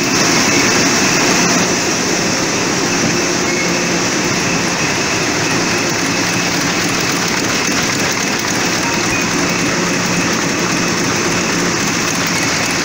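A 2011 Heidelberg Speedmaster SM 74-4 four-colour sheet-fed offset printing press running: a loud, steady mechanical din with a faint high whine.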